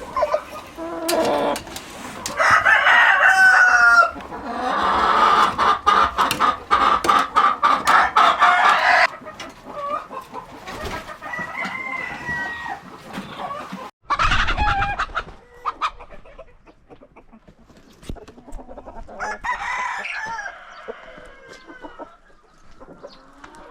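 Chickens clucking and a rooster crowing, loudest in the first half, with further calls about 14 s and 20 s in.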